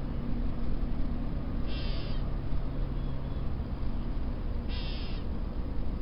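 Gray catbird giving its harsh mew call twice, about three seconds apart, each call about half a second long, over a steady low rumble.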